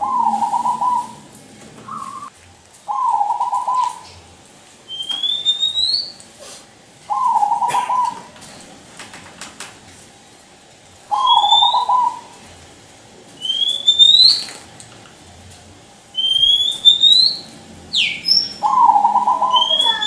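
Zebra dove (perkutut) cooing loudly: short coo phrases about a second long, repeated every few seconds, about five in all.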